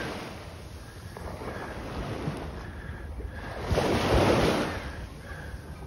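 Wind buffeting the microphone over water lapping, with a louder rush of wind about four seconds in.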